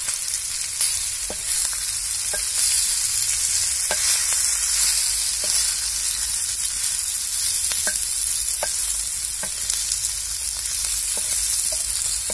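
Spice-stuffed okra frying in oil in a shallow iron pan, giving a steady sizzling hiss. It is turned with a wooden spatula, which adds a few faint short scrapes.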